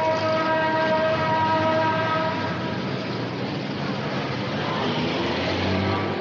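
A horn sounding a steady chord of several notes for nearly three seconds over a continuous rumbling noise, then a second, fainter blast near the end: a sound effect from a classic cartoon library.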